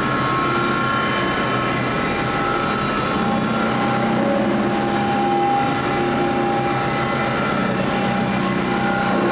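Fox overhead remote-operated grinder, in its inverted set-up, with its abrasive wheel grinding a metal bar. It makes a steady, loud grinding noise with several held whining tones from the motor and wheel.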